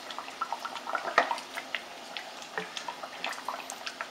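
Pork chunks frying in hot lard in a cast iron Dutch oven, with a steady scatter of small irregular pops and crackles, one sharper tick about a second in.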